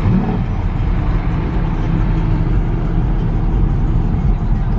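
Steady rumble of a car driving, heard from inside the cabin: engine and road noise.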